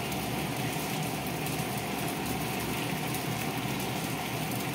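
Steady sizzle of fish frying in oil in a pan, mixed with the bubbling of a pot of broth boiling beside it on a gas stove.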